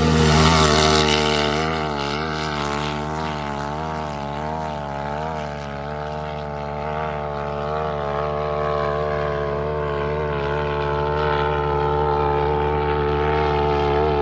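Side-by-side UTV engines, a turbocharged Can-Am and a Polaris, running flat out in a drag race: a steady high-rev engine drone with a slowly wavering pitch, loudest about a second in.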